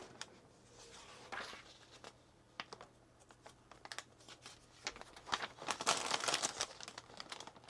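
Plastic packaging crinkling as it is handled, in short scattered crackles that are busiest about five to seven seconds in.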